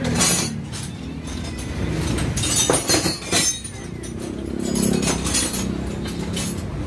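Small metal clinks as a diesel fuel injector clamped in a bench vise is handled by hand, a socket fitted and turned on it, with a few sharp clinks near the middle. A steady low hum runs underneath.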